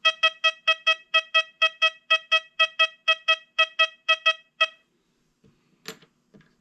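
XP Deus 2 metal detector sounding its target tone as a token is swept over the coil: a quick run of about twenty short beeps, four or five a second, all at one pitch, stopping a little past halfway. A single click follows near the end.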